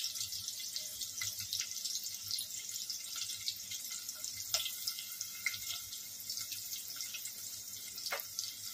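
Chopped onion sizzling and crackling in hot oil in a pot as it is stirred with a spatula, with a few light knocks of the spatula against the pot.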